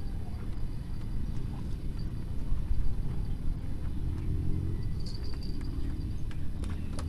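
Wind buffeting the microphone: a low, uneven rumble, with a few faint clicks.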